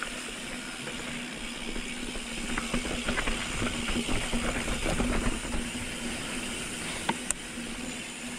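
Mountain bike rolling down a rough, rocky dirt trail: tyres crunching over dirt and stones with the bike rattling, bumpier and a little louder for a few seconds in the middle. A sharp knock near the end.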